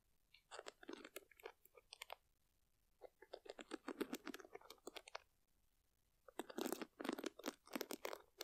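Fingertips raking across the wooden pins of a wooden paddle hairbrush held close to a microphone, making a dense crackly scratching. It comes in three strokes of a second or two each, with quiet gaps between.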